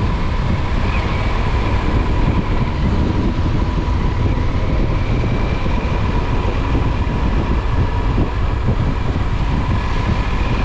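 Motorcycle cruising steadily at about 30 mph, its engine running evenly with a faint constant whine, under a heavy rush of wind and road noise on the bike's camera.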